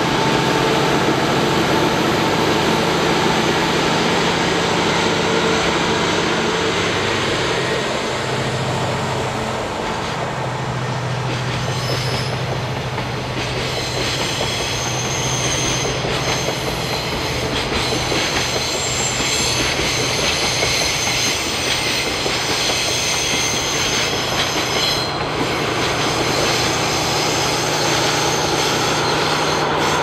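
Freight train hauled by JR Freight DF200 diesel-electric locomotives passing on a curve: a steady low diesel engine drone, and the wagons clattering over the rail joints. From about midway on, high wheel squeal from the long string of container wagons comes in as they round the curve. Near the end the rear pushing locomotive comes alongside.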